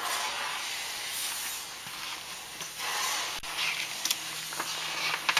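A steady hiss throughout, with the paper pages of a picture book rustling in short scrapes in the second half as a page is taken and turned.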